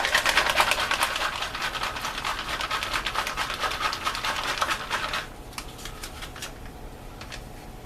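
Plastic MRE drink bag crinkling quickly as it is handled and shaken with the mixed drink inside, for about five seconds, then only a few faint crinkles.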